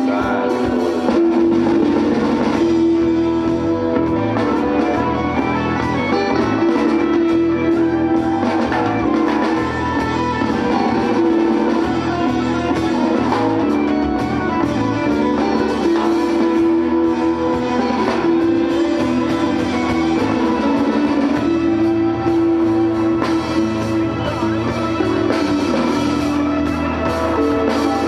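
Live rock band playing: strummed acoustic guitar, electric bass holding strong low notes, and a drum kit keeping a steady beat.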